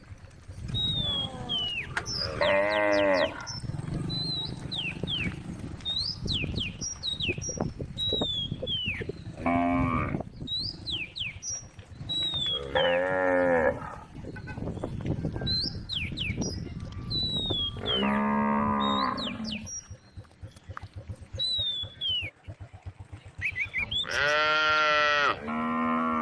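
Cows mooing again and again: about six long, drawn-out calls a few seconds apart, two of them close together near the end.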